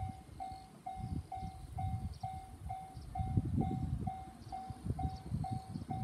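Japanese level-crossing warning bell ringing its steady electronic ding-ding, one clear tone repeating about twice a second while the crossing is active. Underneath it, a low, uneven, gusting rumble.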